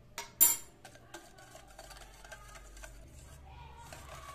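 Wire whisk beating eggs and sugar in a stainless steel bowl: rapid light ticks of the wires against the metal, after two sharp clinks near the start.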